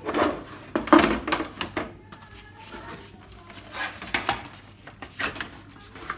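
Scattered clicks and knocks of plastic and cable being handled as the keypad connector is plugged into the TV's main board, the loudest knock about a second in.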